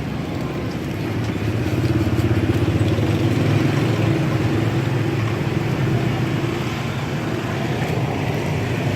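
A motorcycle engine running close by, growing louder over the first couple of seconds and then holding steady.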